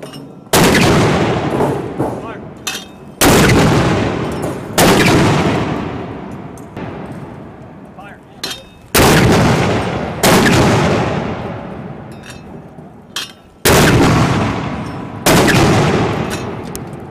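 Mortar rounds fired in rapid succession: seven sharp blasts, some barely a second apart, each trailing off in a long rolling echo.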